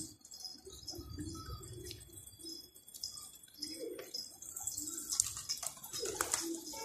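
Several domestic pigeons cooing, short low notes repeating and overlapping.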